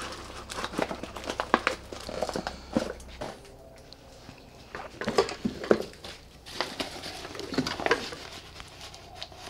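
Plastic bag and wrapping crinkling, with loose outboard-motor parts of metal and rubber knocking together as hands rummage through a box of them. There are two stretches of rustling and clatter, with a short lull around the fourth second.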